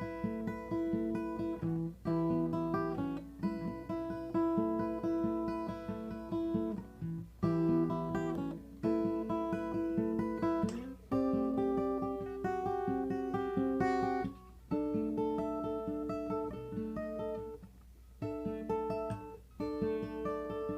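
Acoustic guitar playing a slow chord progression, the chords changing every second or two, with a few short breaks between phrases.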